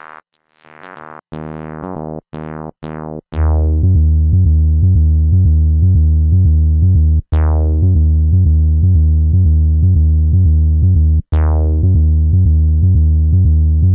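Software synthesizer (Reason's Thor) playing electronic music: a few plucked notes whose brightness falls away, then from about three seconds in a loud, bass-heavy arpeggiated pattern pulsing in a fast steady rhythm. About every four seconds the pattern drops out briefly and restarts with a bright falling filter sweep.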